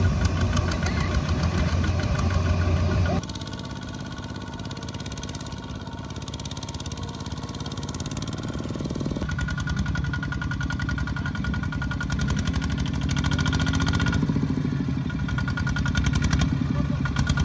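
Kubota ZT155 Plus single-cylinder diesel engines of two-wheel walking tractors running with an even, rapid beat while they haul loaded trailers through mud. The sound drops sharply about three seconds in and shifts twice more as the shots change.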